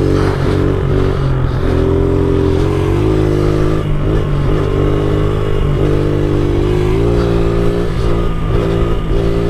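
70cc pit bike engine running under way, heard up close from the rider's seat, its pitch climbing and dropping several times as the throttle is worked.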